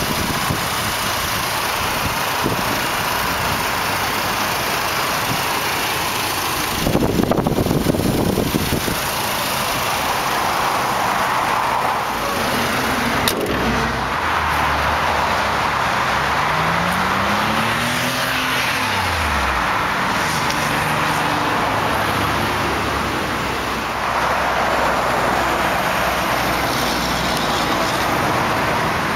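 Steady road noise from highway traffic. A louder rumble comes about seven seconds in. Past the middle, a passing vehicle's engine note rises and then falls.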